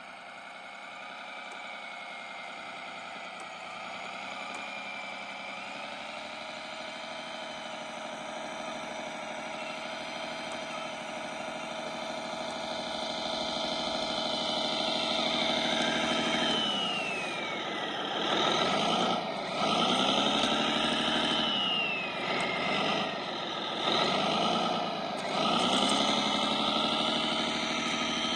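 Electric motor and drivetrain of a Kyosho Blizzard radio-controlled tracked snow vehicle whining, growing louder through the first half. From about halfway on, the pitch drops and climbs back several times as the throttle is eased off and opened again.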